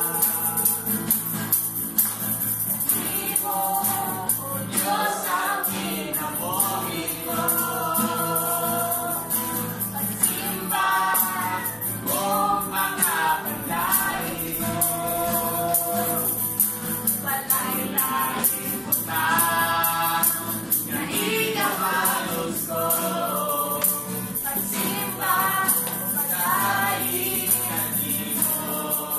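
Live praise-and-worship music: women leading a Cebuano worship song with the congregation singing along, over acoustic guitar and a tambourine shaken in rhythm.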